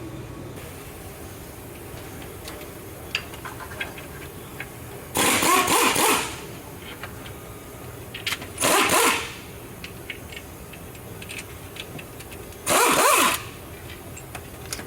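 A power wrench spinning out the 15 mm transmission-to-engine bolts in three bursts of about a second each, with light clicks of the socket and bolts in between.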